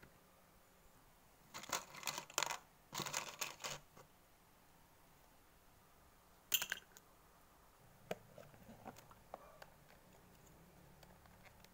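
Metal binder clip clicking and clattering as it is handled and set into a small box, in two short bursts, then one sharp click a few seconds later and a few faint light taps near the end.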